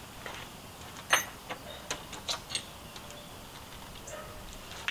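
Scattered light clicks and a short metallic clink about a second in, as of small hand tools (hex and Torx keys) being picked through.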